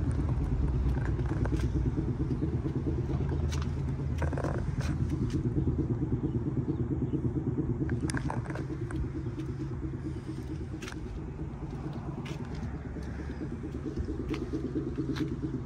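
A car engine running steadily with a low, even rumble, easing off slightly partway through, with a few faint clicks over it.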